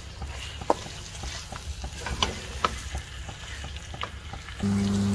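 A spoon stirring thick chicken pickle in a pan, with scattered light clicks and scrapes of the spoon against the pan. A steady low hum starts near the end.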